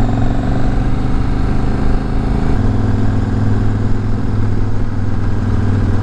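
KTM 1190 Adventure R's V-twin engine running steadily as the motorcycle rides uphill, with road and wind noise. The engine note shifts slightly about two and a half seconds in.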